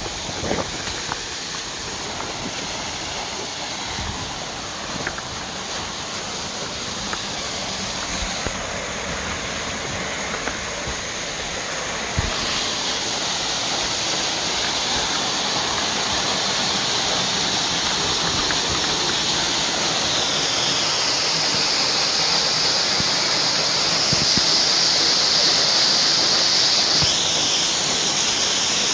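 A small waterfall and a rushing creek swollen by heavy rain: a steady hiss of falling and running water. It grows louder as the falls are approached, with a jump in level about twelve seconds in.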